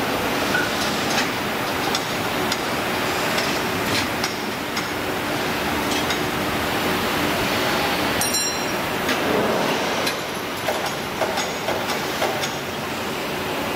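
Steady workshop machinery noise with scattered light metallic clinks and knocks as the steel chopper housing and tools are handled, and a brief run of high ticks a little past the middle.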